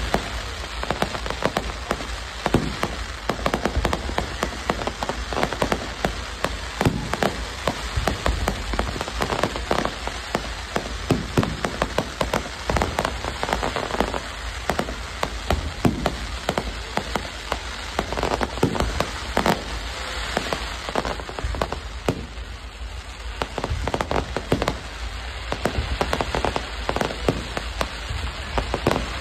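Aerial fireworks display: a dense, continuous crackle of popping stars and shells, with irregular louder bangs among it.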